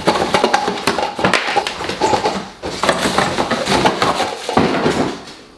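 Cardboard shipping box being ripped apart by hand: fast, continuous tearing and crackling of cardboard, stopping suddenly near the end.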